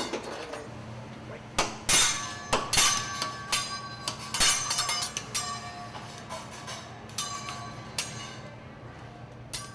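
Teppanyaki chef's metal spatula and fork clanging against each other and the iron griddle: irregular sharp metallic clinks, each ringing briefly, over a steady low hum.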